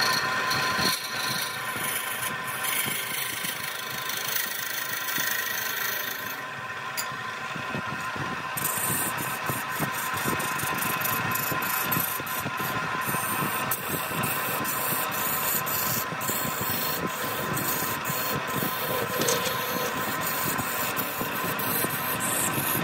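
Wood lathe running steadily with a constant motor hum, with irregular scraping strokes of a turning tool cutting the spinning wood.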